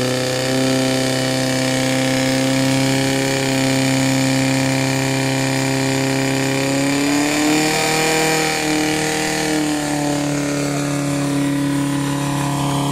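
Portable fire pump's engine running steadily under load, feeding water into the hose lines of a fire-sport attack. Its pitch shifts and wavers about seven seconds in, then settles again.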